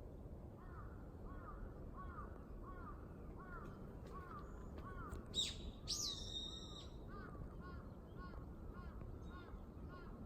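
Birds calling: a bird repeats short whistled calls about twice a second, and a louder, higher sweeping call from another bird comes twice, about five and a half and six seconds in, over a steady low background noise.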